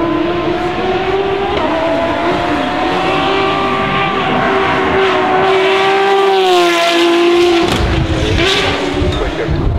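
A supercar's engine under load on a wet track, holding a high, steady note that edges upward as it approaches. About seven seconds in the pitch falls as the car passes and pulls away, leaving a rougher, noisier exhaust sound.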